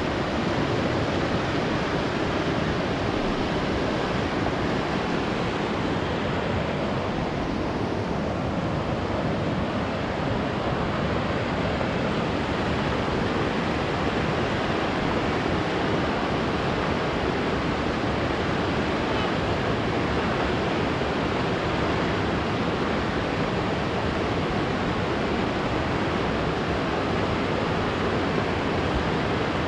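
The Dungeness River running high and muddy, rushing steadily over its gravel bed and riffles in one unbroken wash of water noise.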